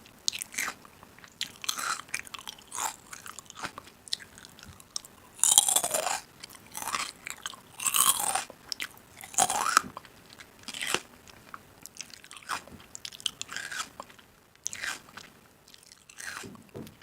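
A person biting into and chewing crunchy food close to the microphone, with irregular crunches about once a second and the loudest bites near the middle.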